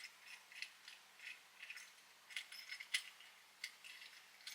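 Faint, irregular small metallic clicks and rattles of tools working on a pipe fitting being tightened.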